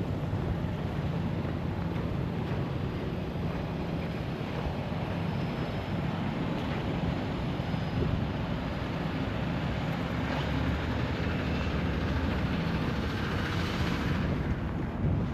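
Steady low rumble of a running vehicle with wind noise, and a hiss that swells near the end and then falls away.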